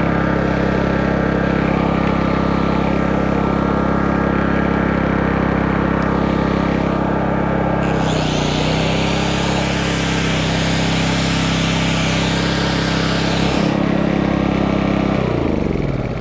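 Four-stroke petrol inverter generator (MaXpeedingRods MXR4500i) running steadily. About eight seconds in, a corded angle grinder plugged into it spins up and runs free for about six seconds, adding a high hiss, and the engine note dips briefly as the load comes on. Near the end the generator engine is switched off and its note falls as it winds down.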